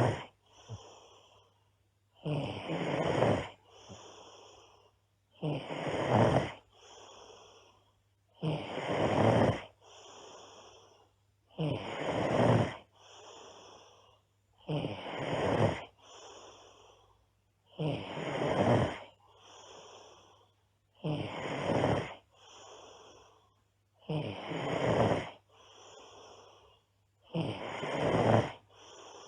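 A girl snoring loudly and very regularly, with a loud snore about every three seconds, each followed by a softer, shorter breath sound.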